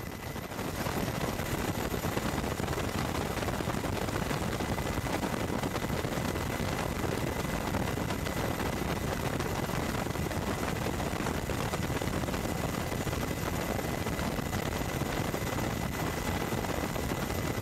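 Steady helicopter noise, rotor and turbine running at a constant level, with a thin high whine held under it; it swells slightly about a second in.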